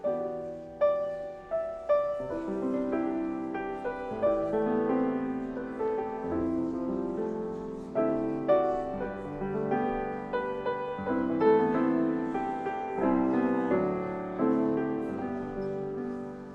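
Solo piano playing a slow instrumental piece in chords, each note struck and left to ring out.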